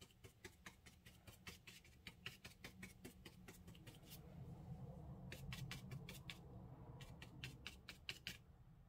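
Watercolor brush dabbing paint onto paper, a quick run of light taps several a second, with a pause of about a second midway, as tree foliage is stippled in.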